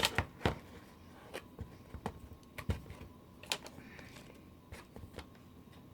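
Scattered light clicks and taps of a small plastic toy package being handled and opened by hand, irregular and fading toward the end.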